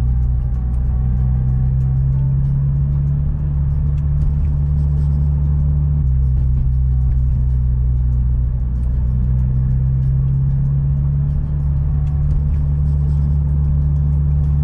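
Engine of a manual sports car with port and direct fuel injection, heard from inside the cabin as a steady low hum at about two thousand rpm, its note shifting slightly about six seconds in. The car is coasting in gear on overrun with the fuel injectors shut off (deceleration fuel cut-off), the engine turned by the wheels.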